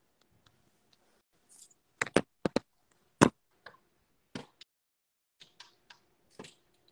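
Irregular sharp knocks and clicks: a quick cluster about two seconds in, the loudest single knock just after three seconds, then lighter taps and clicks until near the end.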